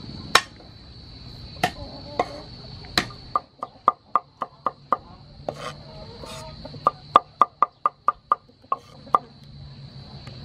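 Cleaver chopping garlic on a wooden cutting board: sharp knocks of the blade on the board. A few spaced strokes come first, then two quick runs of about four to five chops a second.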